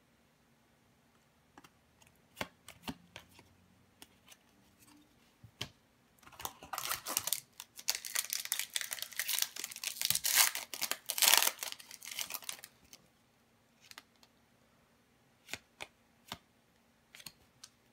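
Foil wrapper of an Upper Deck Series 2 hockey card pack being torn open and crinkled for about six seconds, starting some six seconds in. Before and after it, scattered light clicks and rustles of trading cards being handled.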